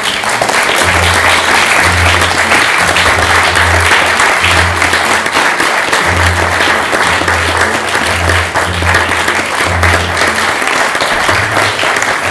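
Theatre audience clapping loudly and steadily, with music playing under it: a bass line of low notes changing about every half second.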